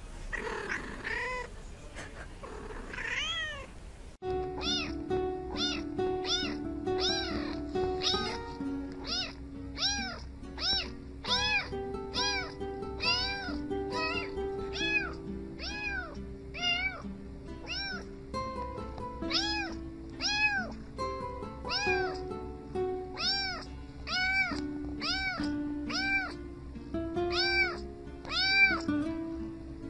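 Domestic cat meowing a few times, then from about four seconds in a long run of repeated meows, about one and a half a second, over background music.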